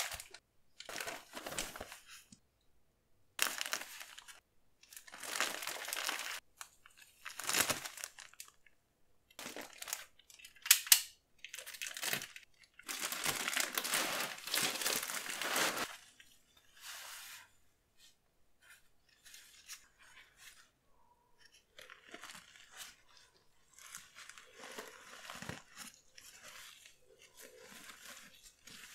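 Clear plastic film wrapping on a pack of disposable incontinence pants crinkling and being torn open in a series of short bursts, with one longer tear about halfway through. Near the end, softer rustling as a papery disposable pant is pulled out and unfolded.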